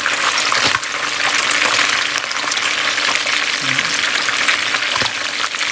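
Whole mackerel shallow-frying in hot oil in a skillet: a steady, loud sizzle and crackle of spitting oil, with two sharp knocks, about a second in and near the end.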